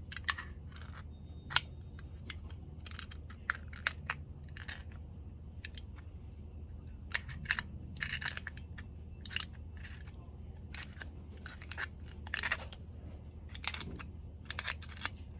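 Aluminium foil stretched over a hollow backing being punctured again and again with a pin: irregular sharp pops and crinkles, some in quick clusters.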